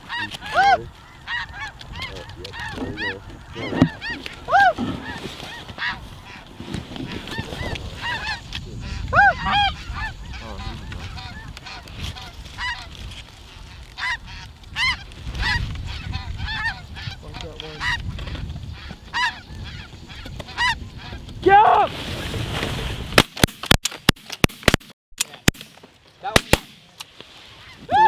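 Snow geese calling: a steady stream of short, high, yelping honks, many overlapping. Near the end the calls thin out and give way to a run of sharp clicks.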